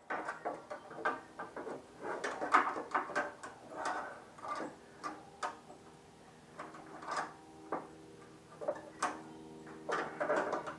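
Irregular metallic clicks and knocks of hand tools and parts being worked while the motorcycle's chain guard is removed, over a faint steady hum.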